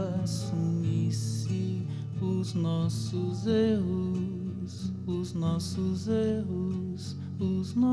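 Acoustic guitar playing a slow song under a man's sung vocal in Portuguese.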